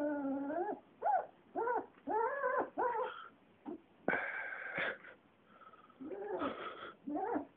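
Puppy whining: a run of about eight short, high cries, each rising and then falling in pitch, with short gaps between them.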